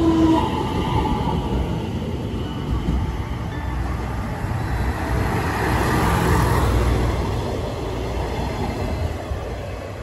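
KiYa 141 diesel inspection train running past on the rails: the diesel engine's rumble and wheel-on-rail noise swell to their loudest about six seconds in, then recede. A passing electric train's motor whine cuts off just at the start.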